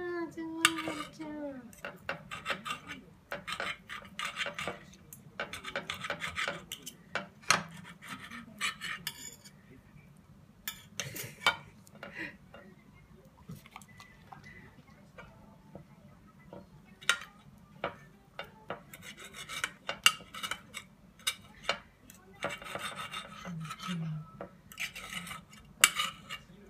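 Steel fork and knife clinking and scraping on a ceramic plate as steak is cut up, in short rasping bouts of a second or two broken by sharp clicks.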